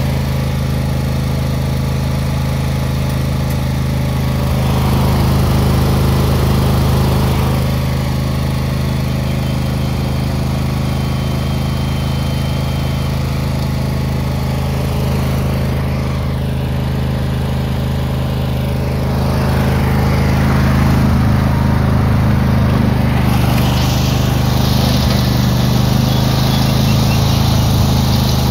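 Craftsman riding lawn tractor's engine running steadily under load while towing a land plane, with gravel crunching under the wheels and the plane. The sound grows louder for a few seconds about five seconds in, and again over the last ten seconds or so.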